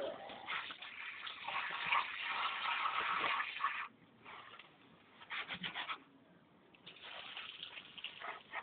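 Water gushing and splashing into a bucket, stopping for about three seconds in the middle and then starting again.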